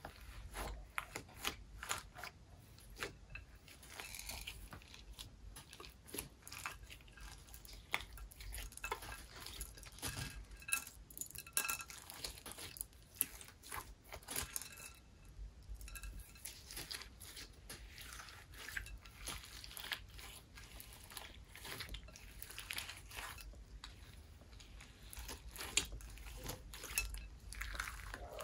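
Slime being worked and mixed in a container: a steady run of irregular sticky clicks and crackles, with now and then a clink of a utensil or dish.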